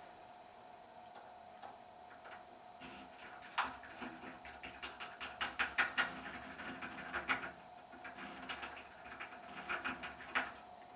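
Lock pick raking and picking the pin tumblers of a deadbolt: quick metallic scraping and clicking in runs, busiest in the middle, with a sharp click near the end.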